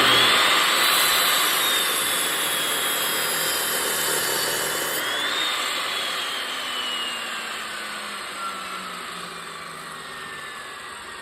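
14-inch chop saw with a wood-cutting blade running and cutting through a piece of firewood: a high motor and blade whine over the rasp of the cut. The pitch sags slightly under load and picks up briefly about five seconds in. Pitch and level then fall steadily through the second half.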